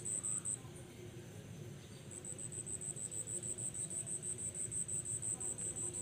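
Insect chirping, high-pitched, in an even rhythm of about six chirps a second; it breaks off about half a second in and starts again about two seconds in.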